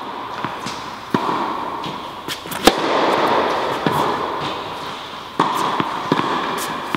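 Tennis balls being struck and bouncing, sharp echoing pops at irregular intervals, the loudest about two and a half seconds in, over the steady background noise of a large indoor tennis hall.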